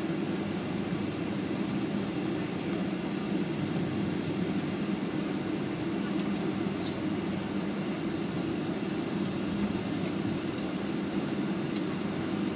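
Steady cabin noise inside a Boeing 757 as it taxis, its engines at idle with a low, even hum, and a few faint ticks of cabin rattle.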